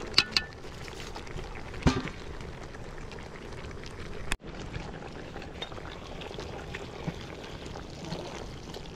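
Meat stew bubbling steadily in a large metal pot over a wood fire, with two sharp metal clinks of a spoon in the first two seconds.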